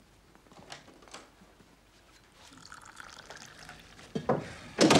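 Liquid poured from a silver pot, a soft trickling hiss, then two sudden knocks near the end, the second louder.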